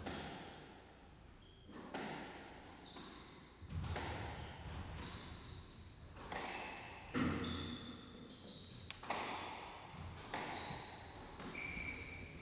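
A squash rally: the ball is struck by rackets and hits the court walls in sharp, echoing cracks about once a second. Short high squeaks of the players' shoes on the wooden floor come in between the shots.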